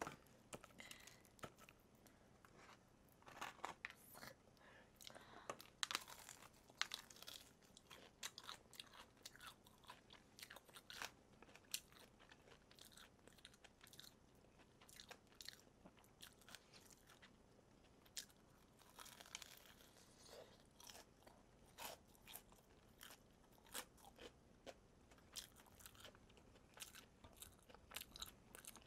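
Biting into and chewing crispy deep-fried chicken (BBQ Golden Olive), the batter giving faint, sharp crunches at an irregular pace, several a second at times.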